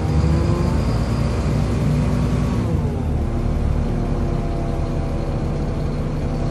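Volvo B7LA articulated bus's diesel engine running under way, heard from on board, with a loud cooling fan over it. The engine's pitch shifts during the first three seconds, then holds steady.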